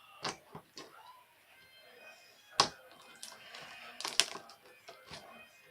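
Irregular sharp clicks and taps, about six in all, the loudest about two and a half seconds in and again around four seconds in, over faint background music.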